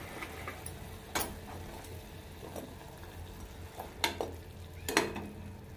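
Sugar syrup bubbling and sizzling in a metal pan as fried bread pieces are put in and moved about with a metal slotted spoon, which clinks sharply against the pan a few times, loudest near the end.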